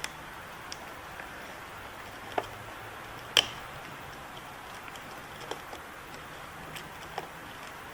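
Scattered light clicks and taps of pliers working metal terminal pins out of a plastic 34-pin ECU connector, with a sharper click about two and a half seconds in and the loudest about three and a half seconds in, over a steady hiss.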